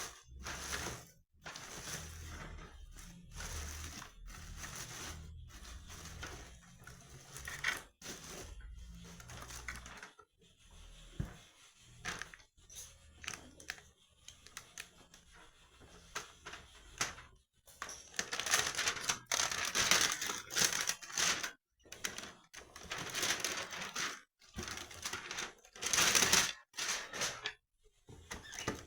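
Packaging being handled while a boxed cookware set is opened: cardboard and plastic wrapping rustling, crinkling and tearing, with small knocks. It comes and goes unevenly, with a few louder crackling stretches in the second half.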